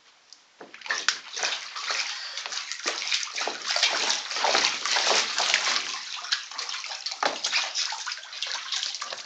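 Water splashing and sloshing in a small inflatable pool as a child moves and splashes about. It starts about half a second in and goes on as quick, irregular splashes, easing off near the end.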